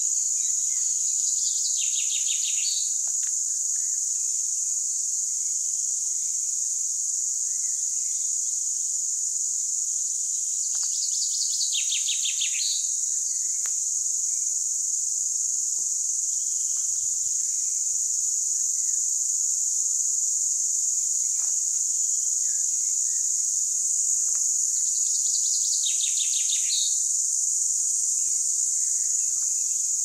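Steady high-pitched insect chorus in the forest, with a short rapid trill coming three times (near the start, in the middle and near the end) and faint scattered bird chirps.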